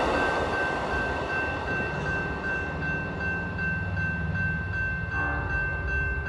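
Amtrak Silver Star passenger train rolling away into the distance, its rumble of wheels and cars fading. A steady high ringing tone pulses throughout, and a train horn sounds about five seconds in.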